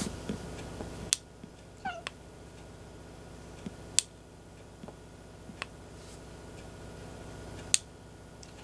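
A domestic cat gives one short meow that falls in pitch, about two seconds in. A few sharp clicks sound through the rest, three of them louder than the meow.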